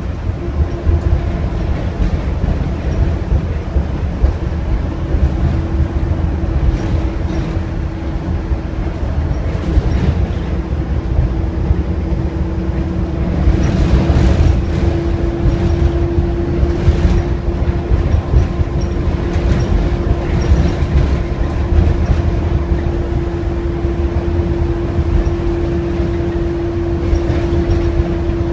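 Optare Versa single-deck bus heard from inside while on the move: a steady low rumble of engine and road noise, with a steady whine that grows louder about halfway through and occasional light rattles.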